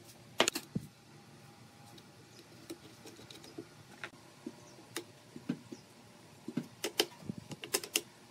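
Sharp metal clicks and light knocks as a bolt is fitted through the crossed wooden legs of a folding chair and a wrench tightens its nut. The clicks come scattered, with a quick cluster just after the start and another near the end.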